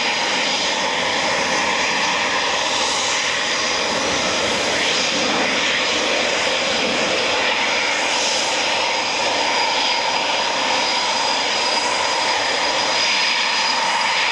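Eurofighter Typhoon jet fighters taxiing, their twin EJ200 turbofans running at low power: a steady jet rumble with a high, steady whine.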